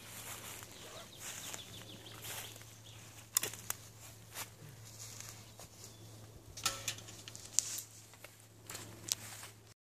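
Wood campfire crackling, with a scatter of sharp pops, the loudest about three and a half seconds in and again near the eighth second.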